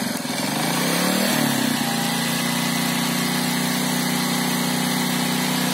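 Small single-cylinder engine of a Chinese Zodiac moped-style motorcycle idling after a kick start; its pitch wavers up and down for the first couple of seconds, then settles to a steady idle.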